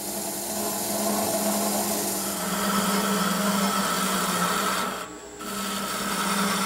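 Wood lathe running with a steady hum while a turning tool cuts into the spinning wooden spindle, a continuous scraping of the tool on the wood. The sound drops away briefly about five seconds in, then resumes.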